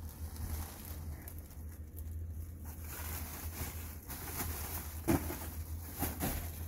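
Rustling and scuffing from crawling through an attic over loose insulation and foil-jacketed flexible ducts, busier from about three seconds in, with a few sharp knocks around five and six seconds. A steady low hum runs underneath.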